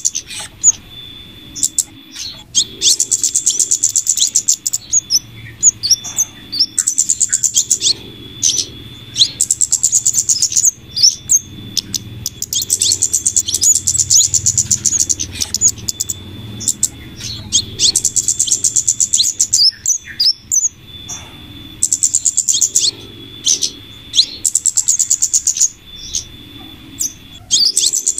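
Bird-lure recording of flowerpecker calls mixed with female scarlet minivet calls. Bursts of high, very rapid chattering ticks repeat every second or two over a thin steady whistle-like tone.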